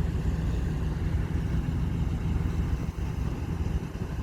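Heavy diesel engine of a mobile crane running steadily with a low rumble.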